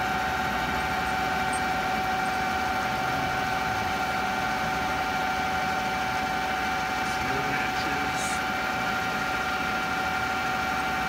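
A 13-inch metal lathe running with a steady whine while a flat-bottom drill in the tailstock chuck is hand-fed into the spinning part, flat-bottoming a drilled hole to depth.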